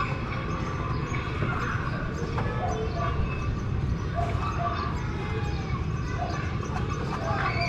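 Wind rumbling steadily on the microphone, with a few faint short sounds from the surroundings now and then.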